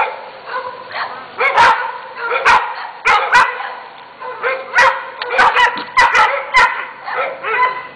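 Several dogs barking over one another, sharp short barks at different pitches coming about two or three a second without a break.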